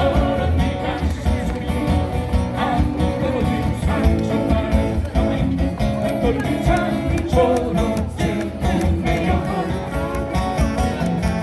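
Live guitar ensemble playing a song, with a singing voice over the strummed and plucked guitars and a steady bass.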